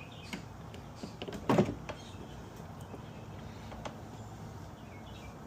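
A few light clicks and one louder knock about a second and a half in: hand work seating a speaker grille onto a motorcycle fairing.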